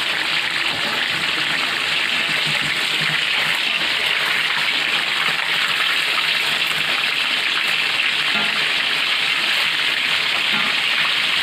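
Jengkol stir-fry simmering in a wok of thin sauce, a steady bubbling sizzle.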